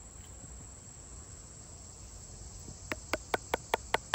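Steady high buzz of insects, then from about three seconds in a quick run of light taps, about five a second, of a wooden baton on the back of a Condor Swamp Romper knife stuck in a piece of maple, knocking the blade level again after it went crooked on a knot.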